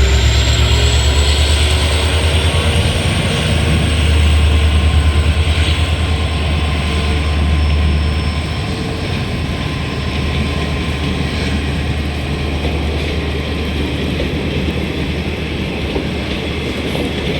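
Diesel locomotive engine humming as a train departs, a deep steady drone that drops a little in level about halfway through.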